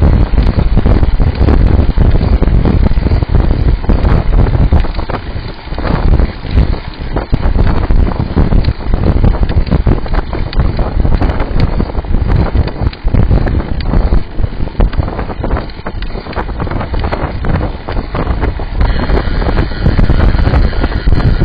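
Heavy wind buffeting on the microphone of a camera mounted on a moving road bike: a loud, gusty rumble that eases briefly a few times before rising again.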